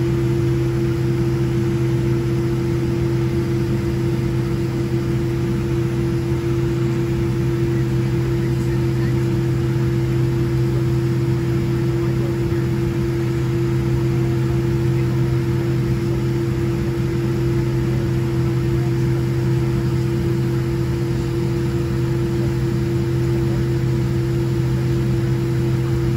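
Steady cabin drone inside a Boeing 787-10 taxiing with its engines at idle: a constant low hum and a steady higher tone over an even rushing background, unchanging throughout.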